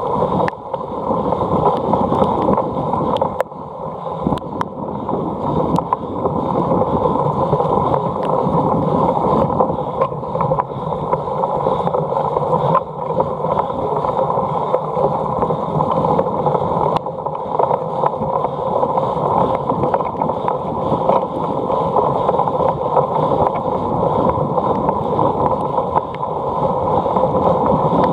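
Steady rushing wind noise on the microphone while riding a cyclocross bike, with scattered small clicks and knocks from the bike over rough ground.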